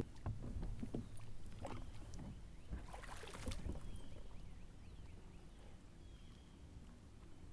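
Faint knocks and clicks of fishing gear being handled in a kayak, over a low rumble of wind and water, thinning out in the second half.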